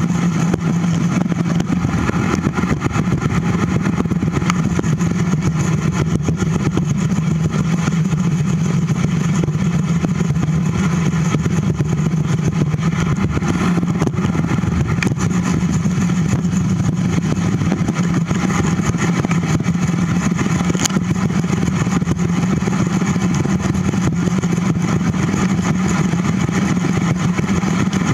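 Steady wind noise and rolling rumble picked up by a bicycle-mounted camera's microphone as the bike rides along a paved trail.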